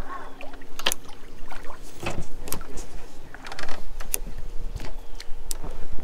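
Scattered sharp clicks and knocks of a spinning reel and rod being handled in a boat, with a faint steady hum joining about halfway through.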